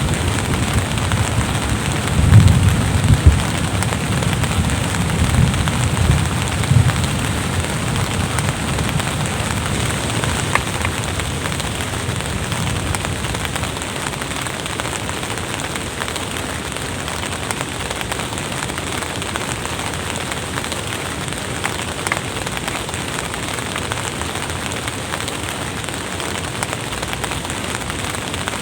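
Steady rain falling, an even hiss, with a few low rumbles between about two and seven seconds in.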